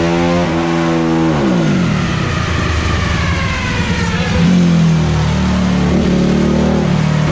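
Modified Honda CRF450 single-cylinder four-stroke engine at the top of a full-throttle dyno pull. About a second and a half in the throttle closes and the revs fall sharply, with a higher whine winding down alongside, and the engine settles to a steady idle about four seconds in.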